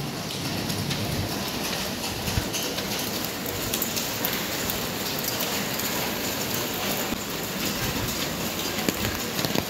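Steady rain falling, an even hiss with scattered small ticks of drops.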